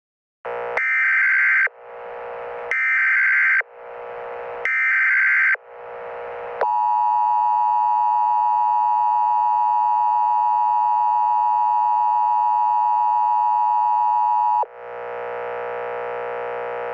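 Emergency Alert System tones: three bursts of the screeching SAME digital header, each trailing off in an echo, then the long steady attention tone for about eight seconds. A quieter steady buzz follows near the end.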